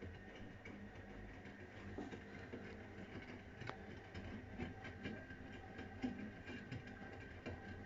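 AEG Öko-Lavamat 693 washing machine turning its drum during a 95 °C boil wash: a steady motor hum with irregular soft knocks of the wet laundry tumbling and occasional sharp clicks.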